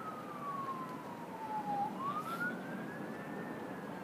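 Emergency vehicle siren wailing: one tone slides slowly down for about two seconds, rises again, and starts falling near the end, over a steady background hum.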